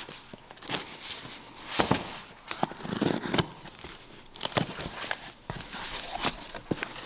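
A small knife slitting the packing tape along the seam of a cardboard box, with scratchy tearing and a string of sharp clicks and rustles, then the cardboard flaps pulled open near the end.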